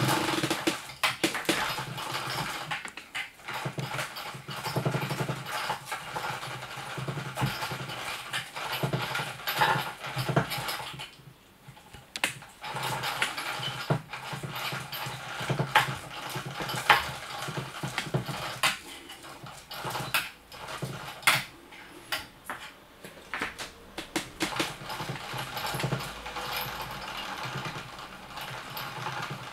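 Small battery motor of a motorised cat toy whirring as it swings a feather lure around, with frequent sharp clicks and taps. It stops for about a second near the middle, then starts again.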